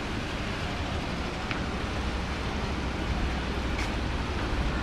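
Wind buffeting the camera microphone: a steady rushing noise with a fluttering low rumble, and two faint ticks.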